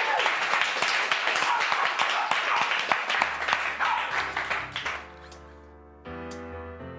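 Studio audience applauding and cheering, dying away over the first five seconds, as a live band starts a song's intro: a low bass note comes in about three seconds in, then sustained keyboard chords about five and six seconds in, with a light high tick about once a second.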